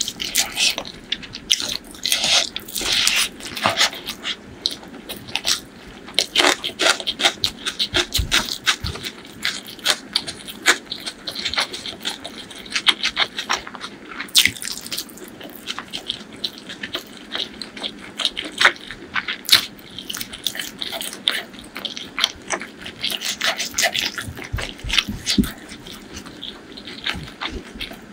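Close-miked eating: irregular wet chewing and mouth clicks on chicken gizzard, liver and curried rice, mixed with squishing as fingers work the sauce-soaked rice.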